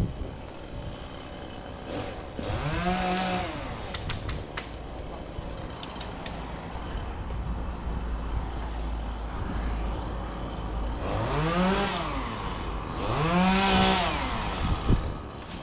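Chainsaw engine idling, then revved up and let back down three times: once about 3 seconds in and twice in quick succession near the end.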